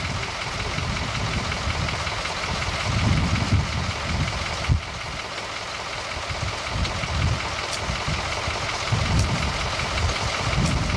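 Bucket truck's engine running steadily, with a gusty low rumble of wind on the microphone. One sharp knock comes a little under five seconds in.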